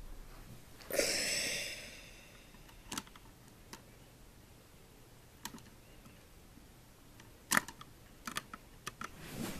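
Scattered small plastic clicks and taps as HO scale model train cars are handled at the coupler to uncouple a tanker car, with a brief scraping rustle about a second in.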